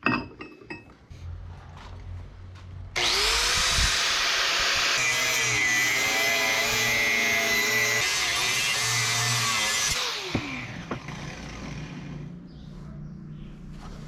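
A metallic clink at the start, then an electric power tool spins up about three seconds in, runs loudly with its pitch dipping under load for about seven seconds, and winds down.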